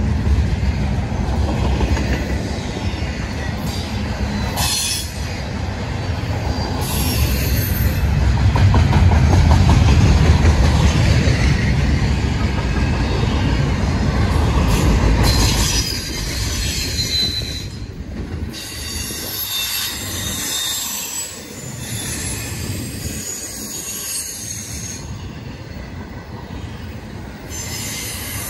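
Norfolk Southern double-stack intermodal freight train rolling past: a heavy rumble of the container well cars on the rails, with high wheel squeal coming and going. The rumble drops away about halfway through, leaving quieter rolling and squeals.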